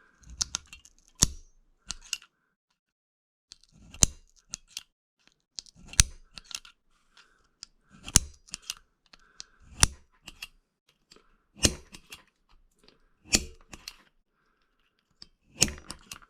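Spring punch snapping repeatedly against a flint preform, about eight sharp clicks roughly every two seconds, with small tapping between them, as the knapper tries to pop off a turtleback hump.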